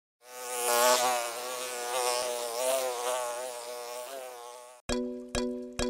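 Bee buzzing sound effect: a steady buzz that wavers slightly in pitch for about four and a half seconds, then cuts off suddenly. Music with evenly spaced struck notes starts near the end.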